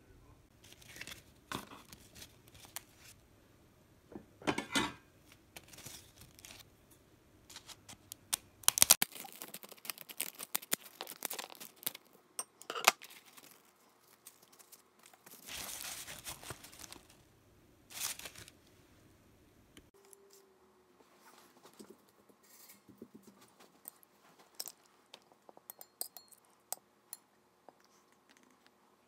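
Table-side food-prep handling sounds: scattered clicks and knocks of plastic containers and plates, and dry rice paper crackling as it is cut in half with scissors.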